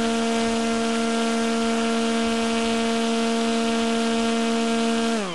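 Model airplane's motor and propeller running at a steady low throttle, a hum with a whine on top: the receiver's failsafe throttle setting has taken over because the transmitter is switched off. Right at the end the motor cuts and winds down, falling in pitch.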